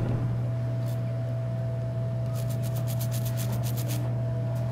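A small brush wet with isopropyl alcohol scrubbing the solder-ball side of a BGA chip, with a quick run of scratchy strokes near the middle. A steady low hum runs underneath.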